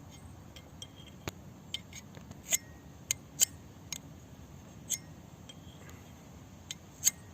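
Ferro rod scraped against the saw blade of a multitool shovel, a dozen or so short, sharp metallic strikes at irregular intervals, throwing sparks to light damp tinder.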